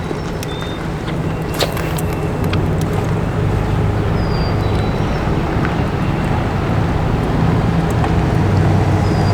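Steady low drone of a motor vehicle's engine running nearby, growing slightly louder, with a few short bird chirps above it.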